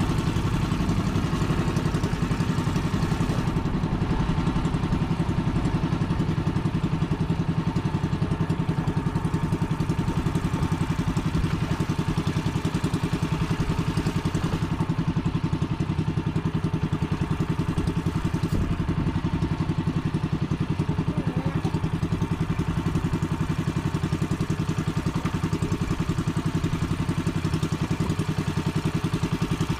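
Engine of a motorized outrigger fishing boat running steadily under way, with a fast, even pulse.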